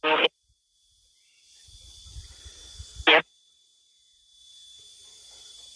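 Spirit Box (radio-sweep ghost box) scanning through stations: short clipped snatches of radio sound right at the start and again about three seconds in, with a steady high hiss and abrupt silent gaps between them.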